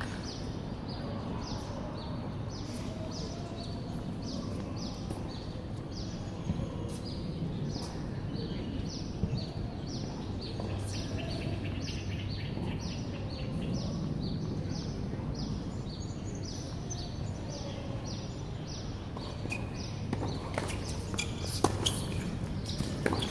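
Outdoor ambience with a high animal chirp repeated evenly a couple of times a second over a low background hum. Near the end come sharp tennis ball strikes and bounces as a rally starts.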